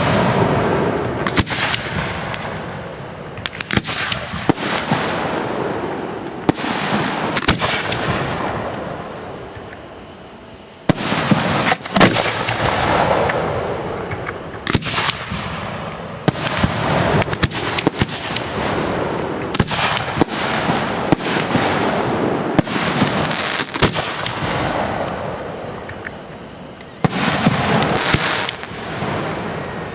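Aerial firework shells bursting in quick succession: a run of sharp bangs, often several a second, with the sound rolling on between them. It dies down twice and comes back with a fresh volley of bangs.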